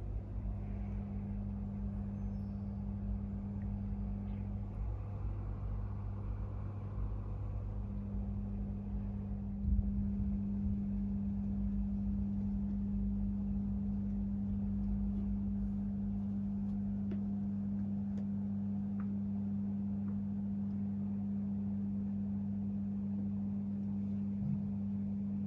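Steady low hum with a rumble underneath, and a brief bump about ten seconds in.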